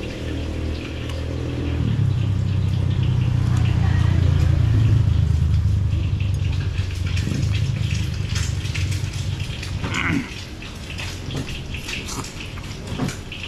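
A motor vehicle's engine passing on the road, growing louder over the first few seconds and fading away by about ten seconds in. Light clicks of a metal fork in the dish follow near the end.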